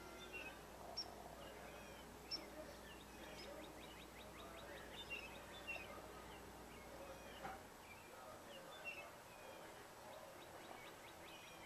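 Faint outdoor ambience with small birds chirping in the background: scattered short high calls and a couple of quick runs of ticking notes. A low hum underneath cuts off about two-thirds of the way through.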